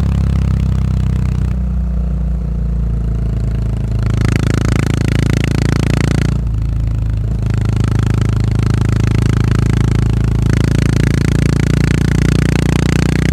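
Yamaha SR400's air-cooled single-cylinder engine running on the move through a tapered-cone slip-on muffler. The exhaust note drops back twice, from about a second and a half to four seconds in and again briefly about six seconds in, then picks up again.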